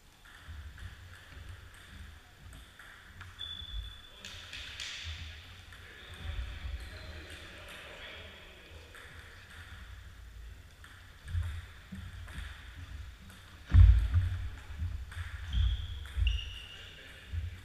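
Table tennis ball clicking off bats and the table in a series of sharp ticks, with dull low thumps on the wooden floor, the loudest about fourteen seconds in, and a few short high squeaks.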